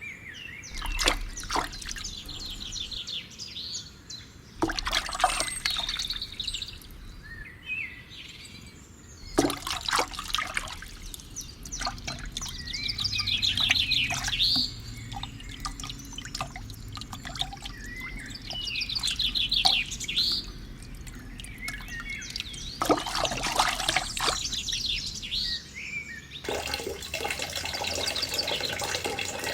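Small birds chirping in repeated short trills, over trickling water, with scattered sharp clicks and knocks.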